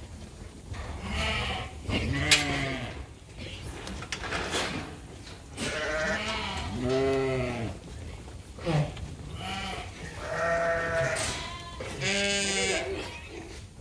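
A flock of sheep bleating, with repeated calls from several animals and a long wavering bleat near the end, plus a few sharp clanks of the metal sorting gate.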